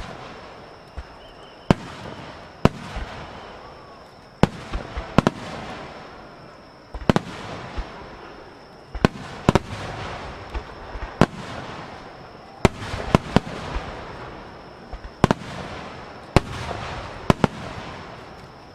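Aerial firework shells bursting in a rapid-fire starmine barrage. Sharp bangs come about once a second, irregularly spaced and sometimes in quick clusters, with a continuous rolling rumble between them.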